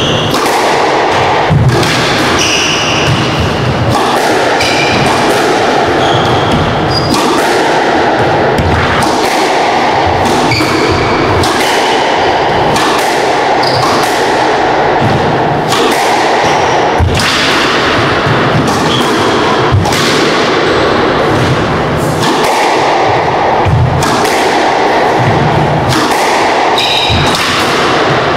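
Squash rally: the ball is struck by rackets and smacks off the walls in sharp knocks every second or so, with short high squeaks of court shoes on the wooden floor between shots, over a steady background hiss.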